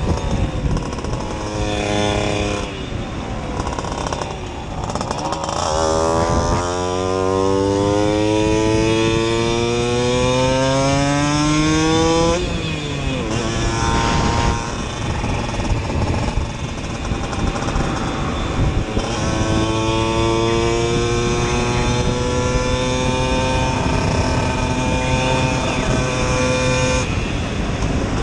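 Simson moped's two-stroke single-cylinder engine, bored to 60 cc and running a Jack Motors exhaust, pulling hard: its pitch climbs steadily for about six seconds, drops off suddenly, holds for a few seconds, then climbs again.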